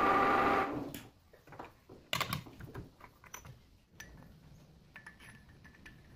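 Metal lathe running with a steady whine, then shut off and stopping within about a second. A sharp metal clank follows about two seconds in, then light metal clinks and knocks as the freshly bored pulley is handled and fitted onto a steel shaft.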